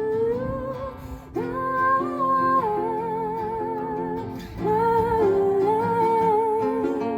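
A woman's voice sings wordless held notes with vibrato over acoustic guitar. The first phrase glides upward, and new held notes come in twice, about a second and a half in and again past the middle.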